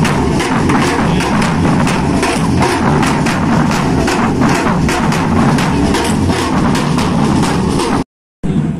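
A women's batucada drum group playing together: many stick-struck drums in a fast, driving rhythm. It cuts off abruptly shortly before the end.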